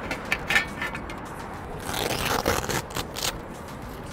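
Hook-and-loop strips and canvas being pulled apart as an aluminium C-channel support is worked free from a camper trailer's bed-end canvas: irregular rasping scrapes, the longest about halfway through.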